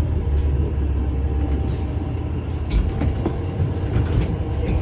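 Cabin of a New Flyer XD40 diesel city bus under way: a steady low engine and road rumble with a faint hum, and scattered short rattles and clicks from the interior.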